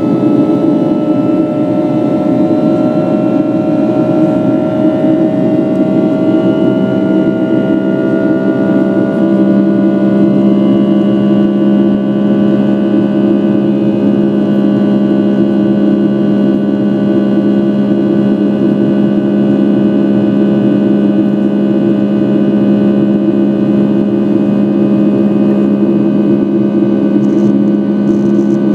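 Cabin noise of a Boeing 757-200 climbing after take-off: the loud, steady drone of its Rolls-Royce RB211 jet engines, with several humming tones. Some of the tones rise slowly in pitch over the first ten seconds, and a deeper hum comes in strongly about ten seconds in.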